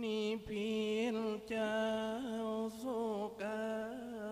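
Nang talung shadow-puppet performer singing alone in a slow melodic line: one voice holding long notes with small wavering turns, broken by a few short pauses for breath.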